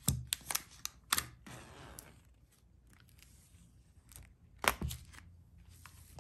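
Hands handling a cardboard product box: a quick run of light taps and clicks, a short rustle, then a couple of soft knocks near the end.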